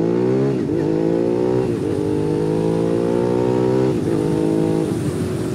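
2005 Suzuki SV650's 645 cc V-twin engine with an aftermarket Beowulf exhaust can, accelerating hard through the six-speed gearbox. The revs climb, drop briefly at three quick upshifts, then hold steady near the end.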